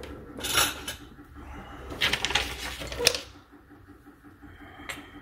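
Hand-tool handling on a workbench: rustling and clattering as metal pliers are taken off a cable and put down, with a sharp click about three seconds in and another near the end.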